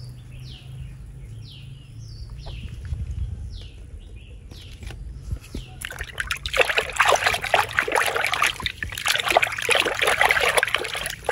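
A hand sloshing and splashing in a plastic tub of yellow-coloured water. It starts about six seconds in, with irregular splashes and trickling.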